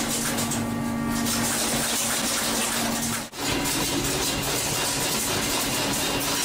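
Steady rush of running water with a constant machinery hum on a fishing boat's processing deck. There is a brief dropout a little over three seconds in, after which the hum sits slightly higher.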